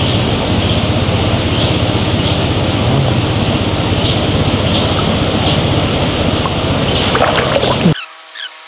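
River water sloshing and splashing close by as people wade neck-deep through a muddy stream. Near the end the water noise stops suddenly, leaving faint high chirps.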